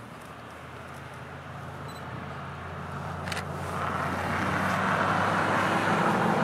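A car approaching on the road, its tyre and engine noise growing steadily louder.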